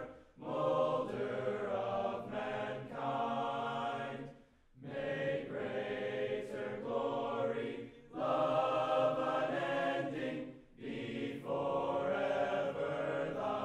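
Slow choral music sung in long held phrases, with short breaks between them.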